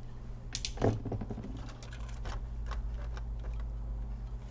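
Scattered light clicks and taps of small plastic and metal laptop parts being handled, with a duller knock about a second in, over a steady low hum.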